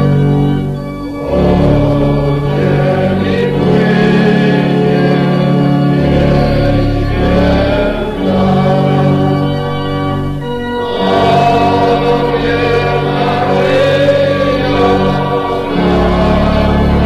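A group of voices singing a church hymn with organ accompaniment, in long held phrases with short breaks about a second in and again around ten seconds in.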